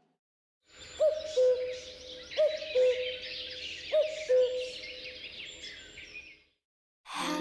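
A Huawei P40 lite E ringtone made of nature sounds: low two-note calls in three pairs, evenly spaced, over a dense bed of high chirping and twittering. It stops about six and a half seconds in.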